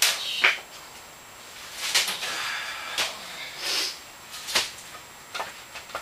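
Sharp knocks and clatters of wood and metal at the bottom of a sectional garage door as a block is worked under it, with two brief scraping noises near the middle.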